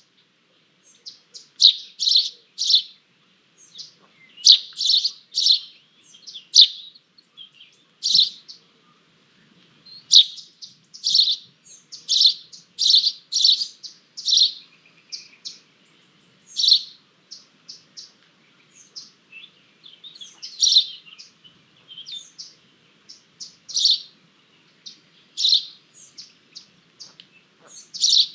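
Buzzard chicks cheeping: short, high calls coming in quick runs of two to four notes, with brief pauses between runs.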